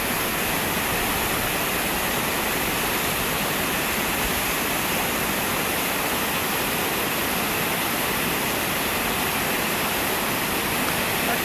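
Steady, even rushing of a river's open-water rapids, unbroken throughout.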